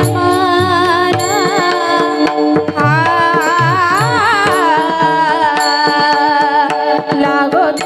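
Marathi kirtan devotional song: girls' voices singing an ornamented, wavering melody over a steady drone, with regular low drum strokes keeping the beat.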